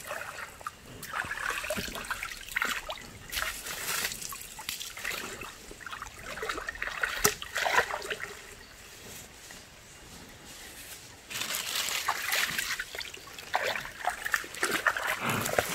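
Stream water splashing and trickling in irregular bursts as a mini bull is bathed in a shallow stream, with a quieter stretch about halfway through before the splashing picks up again.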